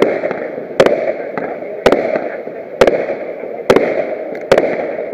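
Fireworks display: a string of sharp bangs, about one a second, with a steady noisy background between them.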